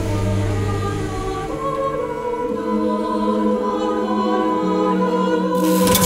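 Soundtrack music of a choir holding long, slowly changing chords, with a short swell of noise near the end.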